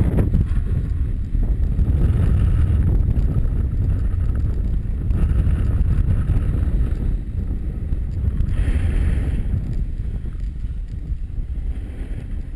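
Wind buffeting a goggle-mounted GoPro during a fast snowboard run, a heavy steady rumble, with a few short spells of scraping hiss from the board on icy snow.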